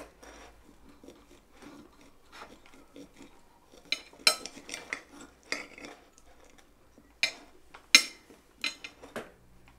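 Knives and forks clinking and scraping on dinner plates as two people eat: irregular small clicks, with a few sharper clinks.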